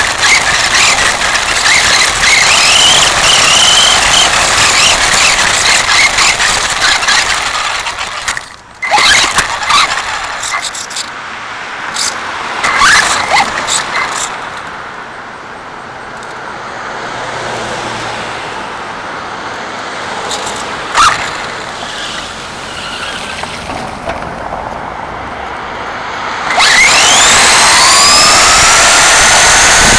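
Radio-controlled car's motor and drivetrain, heard through a camera mounted on the car. It runs loud and rattling at first over brick paving, goes quieter for a long stretch in the middle with a few clicks, and near the end a whine rises in pitch and holds as the car speeds up again.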